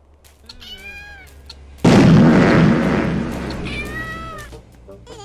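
A wavering, meow-like pitched call, then a sudden loud blast that fades away over a couple of seconds, then a second meow-like call.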